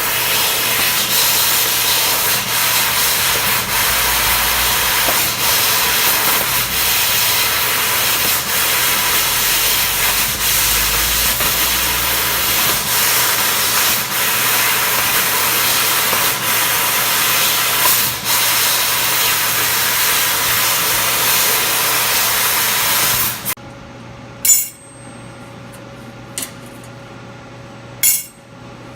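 CNC laser engraver running, a loud steady rushing noise with a thin steady tone through it. It cuts off suddenly about 23 seconds in, leaving a low hum and a few sharp clicks.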